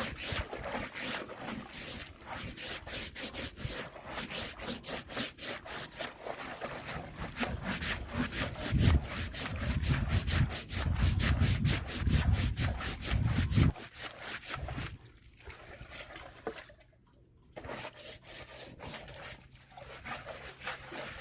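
A brush scrubbing a fish trap clean, in quick back-and-forth strokes, with a low rumble under the strokes for a few seconds. The scrubbing stops about 14 seconds in, leaving only a few faint scrapes.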